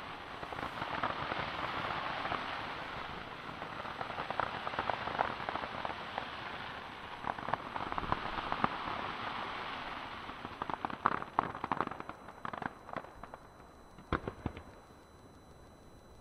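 Fireworks crackling: a dense hiss of many small rapid pops that thins out after about twelve seconds into scattered sharp cracks, with a few louder ones near the end.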